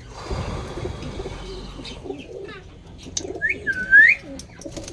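Aviary birds calling: low, repeated dove-like cooing with scattered small chirps, and one loud swooping whistled call a little past three seconds in.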